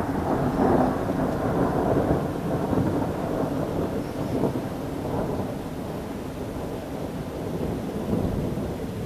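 Thunder rolling: a long low rumble that swells to its loudest in the first couple of seconds, then slowly dies down while still grumbling on.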